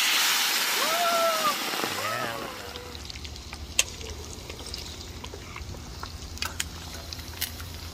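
Chicken feet and chicken organs tipped into a wok of hot oil, which hisses loudly as they hit it. After about two and a half seconds it settles to a quieter frying sizzle with scattered pops. A short voice sounds about a second in.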